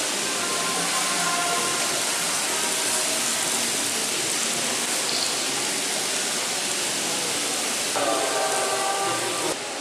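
Steady hiss of busy shopping-mall ambience, with faint music and voices mixed in; the music or voices come through more clearly near the end.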